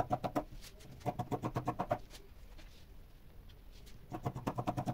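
Scissors cutting through thick woven wool coat fabric in quick runs of short snips. The cutting pauses for about two seconds midway, then starts again near the end.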